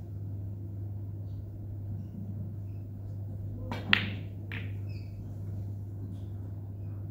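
Snooker shot: the cue tip strikes the cue ball, followed at once by a sharp, louder click of ball striking ball and a softer click about half a second later. A steady low hum runs underneath.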